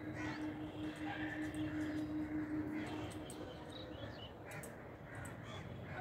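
Crows cawing now and then in the open air. A steady low tone of unknown source sounds along with them through the first half, stopping about three seconds in.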